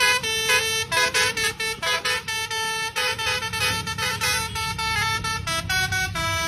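Indonesian bus telolet horn, a Basuri multi-tone air horn, playing a quick tune of short chord-like notes that change several times a second, with the bus engine rumbling low underneath.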